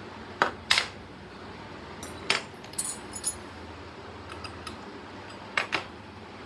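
Small metal parts and tools being handled: a series of sharp clinks and taps, with a pair near the start, a quick cluster in the middle and another pair near the end, over a steady background hiss.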